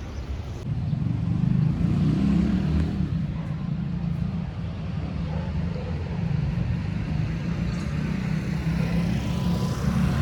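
Street traffic: motor vehicles running close by, with a steady low engine rumble.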